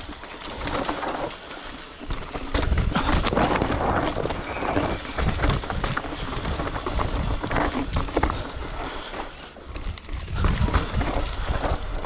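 Mountain bike rolling fast down a rocky, loose dirt trail: knobby tyres crunching over dirt and stones, with the bike rattling and clattering over the bumps. The noise eases briefly about a second in and again near ten seconds.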